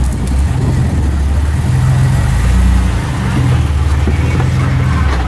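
Engine of a lifted Ford Ranger pickup running at low revs, its low rumble swelling and easing unevenly as it crawls over rocks.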